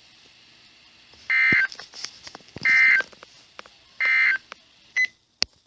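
NOAA Weather Radio sending its SAME end-of-message code: three short warbling digital data bursts, about a second and a half apart, marking the end of a flash flood warning broadcast. Two sharp clicks follow near the end.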